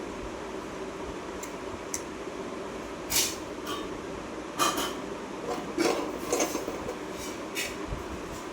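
Small hard parts and tools clinking and rattling in short bursts, four or five times, over a steady fan-like hum.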